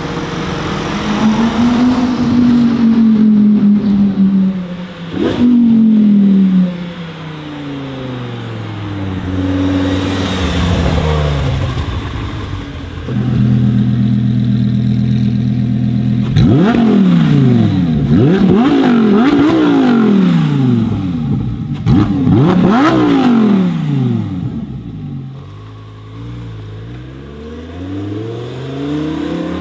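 Lamborghini Huracán's V10 engine revving as the car pulls away: revs rise and fall through upshifts, then are held steady for a few seconds, then blipped high again and again in quick bursts, with a few sharp cracks from the exhaust. The revs drop back for a moment and rise again near the end.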